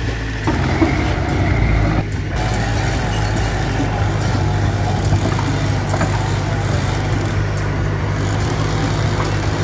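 Mitsubishi BD2F bulldozer's diesel engine running steadily under work. The sound shifts abruptly about half a second in and again about two seconds in.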